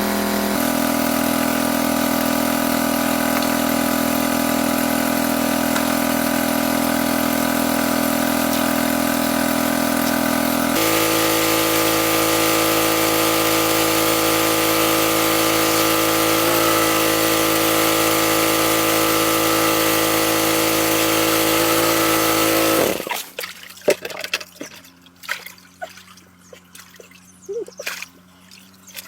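Small engine-driven water pump running steadily, its pitch stepping twice, then cutting off suddenly about 23 seconds in. After it stops there are light splashes and trickling water.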